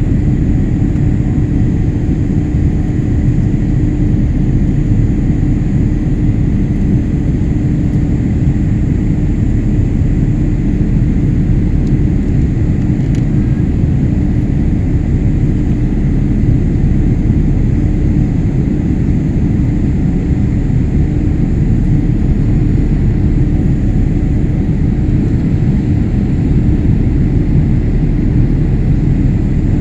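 Steady cabin noise of a Boeing 787 in flight, heard from inside the cabin: a loud, even low rumble of engines and airflow with a steady hum.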